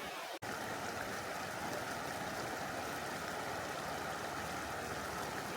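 A steady rushing noise with a momentary dropout just under half a second in.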